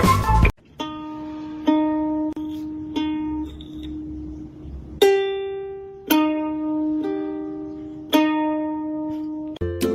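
Music: loud rock music cuts off about half a second in, then a slow melody of single plucked-string notes, each ringing out and fading before the next.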